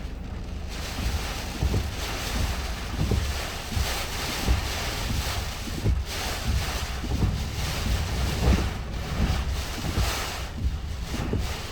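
Typhoon wind gusting hard, surging and easing, with repeated low rumbling buffets of wind on the microphone.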